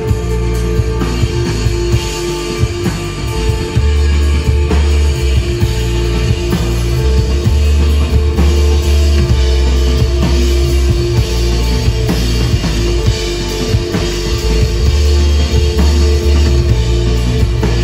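Psychedelic stoner rock band playing live: drum kit, guitar and bass, with long, loud held low notes.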